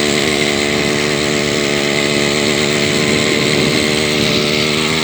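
Single-cylinder two-stroke engine from an Ural chainsaw, fitted to a homemade trike, running steadily.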